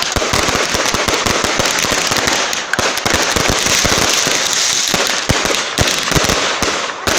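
Firework batteries (multi-shot cakes) firing a continuous barrage of rapid bangs and crackles.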